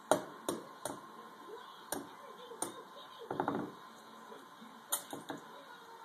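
Raw egg tapped several times against the rim of a glass tumbler, sharp separate clicks, then a short crackle of the shell breaking open about three and a half seconds in, with a few more light clicks against the glass near the end as the egg is emptied in.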